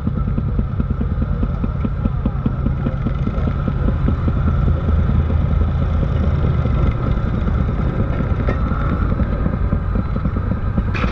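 Small engines of railway motorcars (track speeders) running steadily with a fast, even putter as the cars pull away along the rails. A short sharp knock comes at the very end.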